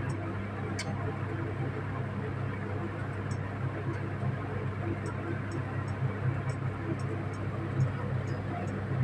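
A steady low hum, like a motor or fan running, with faint light ticks scattered over it.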